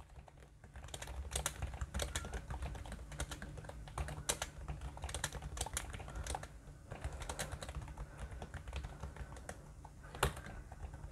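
Typing on a compact Jelly Comb Bluetooth keyboard's round plastic keys: a quick, irregular run of light key clicks with a few short pauses, and one louder click near the end.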